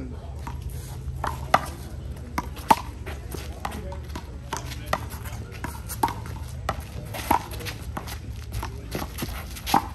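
Sharp slaps of a small rubber handball during a rally, struck by hand and bouncing off the wall and court, roughly once a second at an uneven pace, over a steady low rumble.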